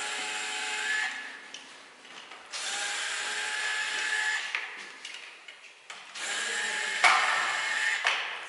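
Cordless drill/driver run in three bursts of about two seconds each, working the terminal screws of capacitor cans being torn down. There is a sharp click about seven seconds in, during the last run.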